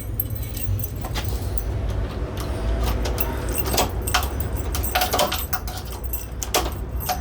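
Keys jangling on a ring, with scattered metallic clicks, as a new key is put into and turned in a storefront mortise lock cylinder to test it.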